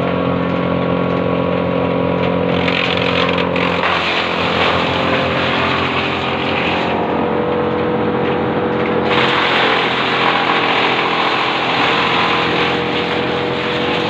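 Wood chipper running with its feed rollers turning and no wood being fed: a loud, steady machine drone. The tone shifts about four seconds in and grows brighter about nine seconds in.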